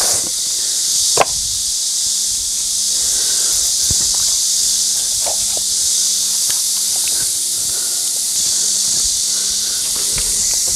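A steady high hiss throughout, with a few scattered knocks and soft thumps as a large raw pig's head is handled and set down on a concrete slab; a faint steady hum starts about a second in.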